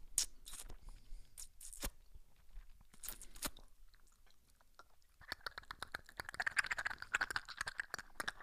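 ASMR-style mouth sounds made close to a microphone: separate lip smacks and tongue clicks, then from about five seconds in a fast, dense run of small clicking mouth noises.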